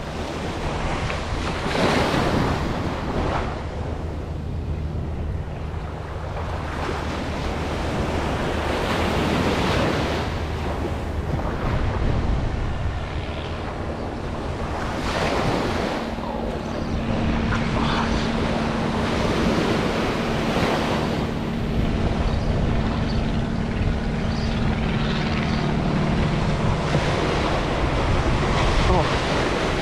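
Ocean surf breaking and washing up a sandy beach, surging and fading every few seconds, with wind buffeting the microphone.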